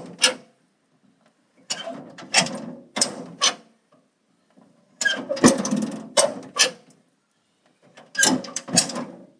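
A metal door being swung and shut three times, each time a rattle of loose metal ending in a few sharp clanks.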